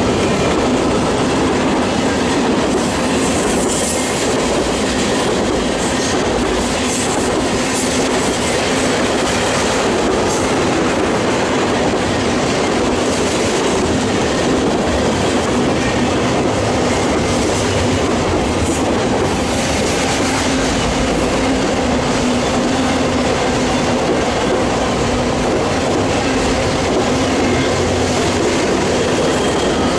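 Freight train cars (boxcars, covered hoppers and tank cars) rolling steadily past, with a continuous rumble of steel wheels on the rails and clicking over the rail joints.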